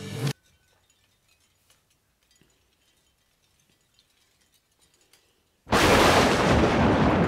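A held musical tone cuts off just after the start, followed by near silence with a few faint small clicks. About five and a half seconds in, a sudden loud boom, a dense crash with no pitch, hits and fades slowly, its higher part dying away first.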